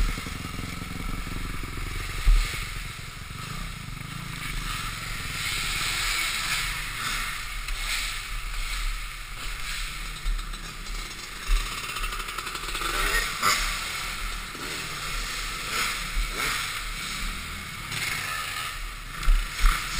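2005 Honda CRF450R's single-cylinder four-stroke engine running and revving as the dirt bike is ridden round the track, picked up by a helmet-mounted camera under heavy low rumble on the microphone. Several sharp thumps near the end.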